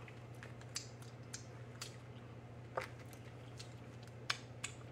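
Faint, scattered eating sounds: small clicks and wet smacks from handling a sauce-coated lobster tail in a plastic seafood boil bag and from licking fingers, the loudest about three seconds in. A low steady hum runs underneath.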